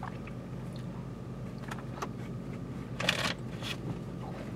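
Steady low running hum of a car heard from inside the cabin, with a short rustling burst about three seconds in.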